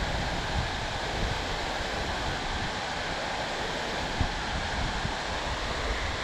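Creek water rushing steadily, with a few brief faint knocks.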